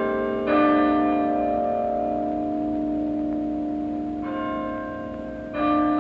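Tuned bells playing a slow tune: a new note is struck about half a second in and two more near the end, each ringing on and fading under the next.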